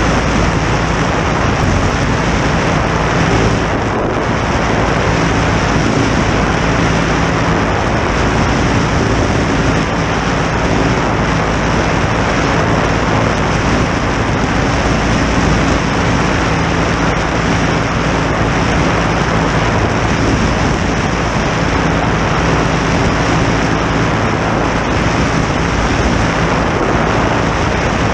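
Legal Eagle ultralight's flat-twin engine and wooden propeller running steadily in flight at an even pitch, under a constant rush of wind noise.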